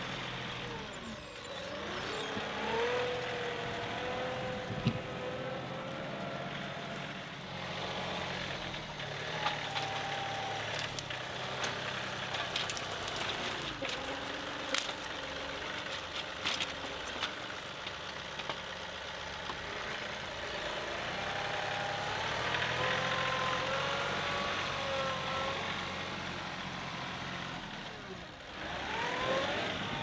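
John Deere 2038R compact tractor's three-cylinder diesel engine running under load while it works stumps, with a whine that rises and falls over it. Scattered sharp clicks and knocks come through the middle of the stretch.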